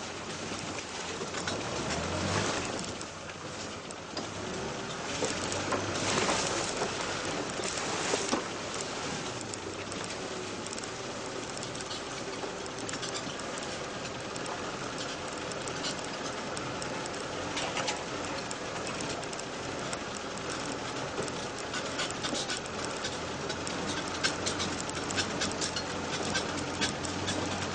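Off-road vehicle driving slowly over a rough, rutted dirt track: a steady rattling rumble with frequent knocks and clicks from the jolting ride, a little louder in stretches near the start.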